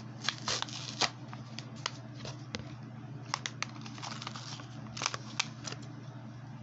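Hands opening a toy car's plastic and cardboard packaging: scattered clicks, scrapes and crinkles, irregular and fairly quiet, over a steady low hum.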